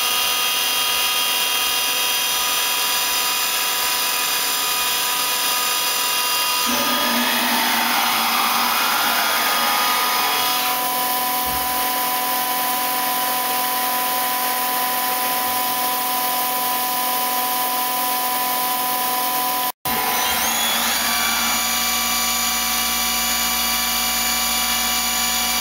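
Star SV32J CNC Swiss lathe's main spindle running at 2,500 rpm: a steady machine whine of several tones. About seven seconds in, the whine changes, with tones gliding in pitch for a few seconds before settling. Near the end the sound cuts out for an instant, then the steady whine resumes.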